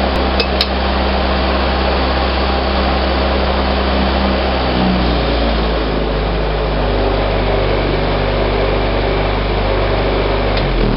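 A Series IIA Land Rover's new 2.25-litre four-cylinder petrol engine idling steadily, heard from inside the cab; its idle note shifts a little about halfway through.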